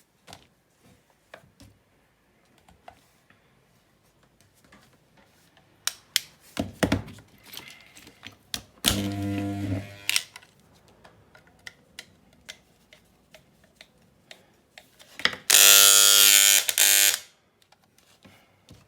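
Electric hair clipper switched on twice, its freshly sharpened blades buzzing. The first run is short, near the middle; the second, near the end, is much louder and lasts about two seconds. Scattered light clicks of the clipper being handled come between the runs.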